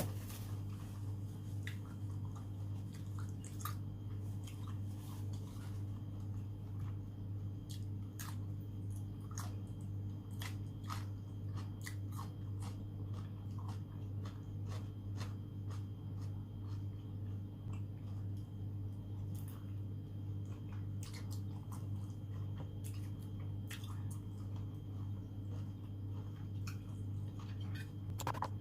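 Close-miked chewing of raw seafood: frequent wet mouth clicks and smacks, over a steady low hum.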